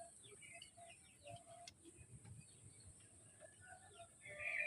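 Birds chirping faintly in many short calls, with a louder call near the end, over a steady high-pitched hiss.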